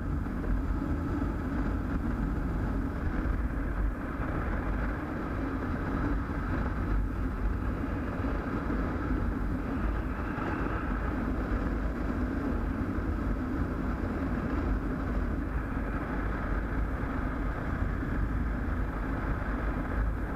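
Motorcycle cruising steadily at highway speed: a low engine and road drone under a constant rush of wind over the microphone.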